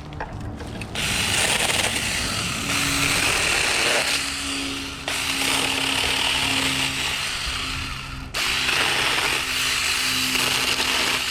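Tomy Vic 6-inch electric mini chainsaw cutting through small limbs: a steady motor hum under the rasp of the chain in the wood. The cutting starts about a second in and eases off briefly twice, around four seconds and just after eight.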